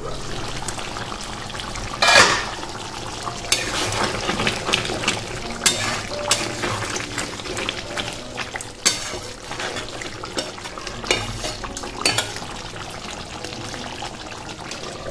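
Masala-coated chicken sizzling in a metal kadai on a medium-high flame while a metal spatula stirs and scrapes it against the pan, with irregular clinks and knocks. A louder metal clank comes about two seconds in.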